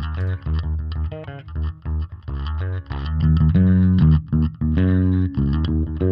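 Isolated electric bass guitar track from a live band recording, playing a run of short plucked notes, then longer held notes from about halfway through.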